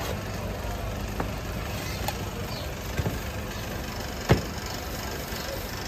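Steady low engine-like rumble with a few sharp knocks of knife and dough on a wooden worktable as thin pastry sheets are cut and handled; the loudest knock comes about four seconds in as a stack of sheets is lifted and set down.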